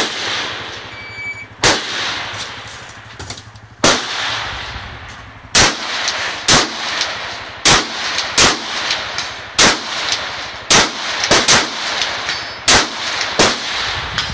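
Rifle shots fired at an irregular pace, some single and some in quick pairs, about sixteen in all. Each shot trails off in a long echo.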